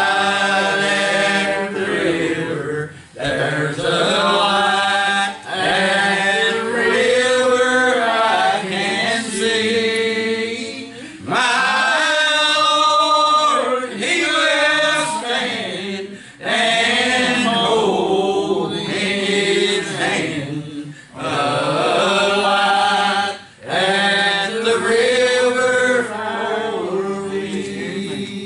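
Singing of a slow gospel hymn in long, drawn-out phrases, with brief breaks between lines.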